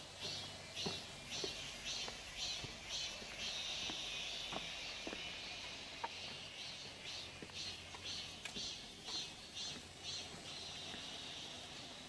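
Insects chirping in an even, high-pitched pulse about two to three times a second, running together into a continuous buzz for a couple of seconds midway, with a few faint scattered clicks.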